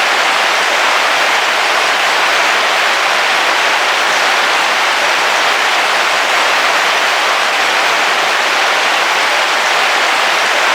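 Heavy rain on a car roof, heard from inside the car as a steady, dense hiss with no let-up.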